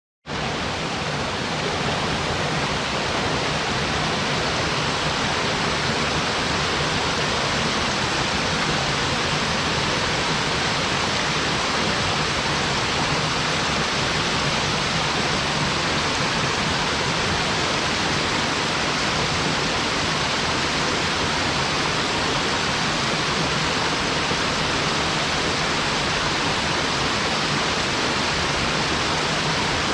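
Small mountain-stream waterfall splashing into its pool, a steady full rush of falling water.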